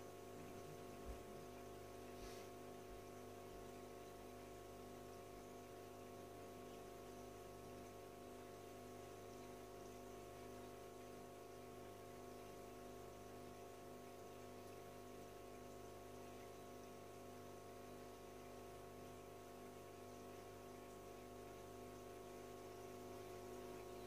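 Faint, steady mains-frequency hum of an aquarium filter's motor, with several steady tones over a light hiss and a faint tap about a second in.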